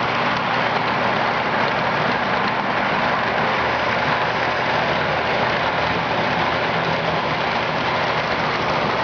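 HO-scale model trains running on the layout: a steady rolling hiss of wheels on track and small motor noise, with a faint low hum under it.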